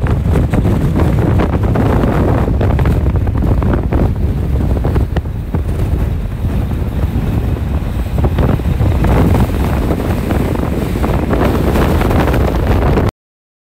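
Wind buffeting the microphone: a loud, gusting rumble, heaviest in the low end. It cuts out abruptly to silence near the end.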